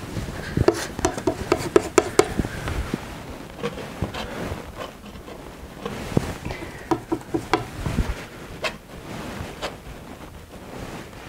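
Large steel palette knife scraping and tapping on the palette while mixing thick oil paint, with a quick run of sharp clicks in the first couple of seconds and another few about seven seconds in.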